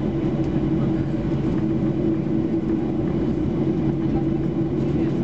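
Cabin noise inside a Boeing 737-800 as it taxis, its CFM56-7B turbofans running at low taxi power. It is a steady hum with a low drone, holding level with no spool-up.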